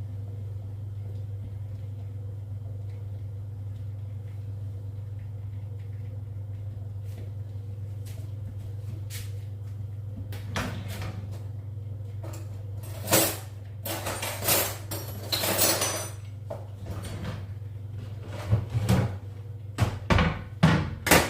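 Kitchen clatter: a run of sharp knocks and short scraping bursts from cookware and cupboards being handled, starting about halfway through, over a steady low hum.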